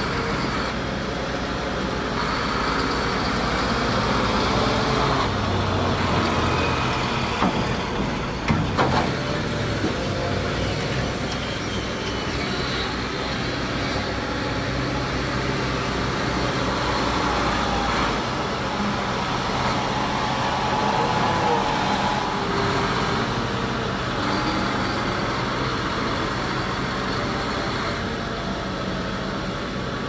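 Heavy farm machinery running steadily: a Fendt 1000 Vario tractor's big diesel and a potato cleanloader working together, with a single sharp knock about eight and a half seconds in.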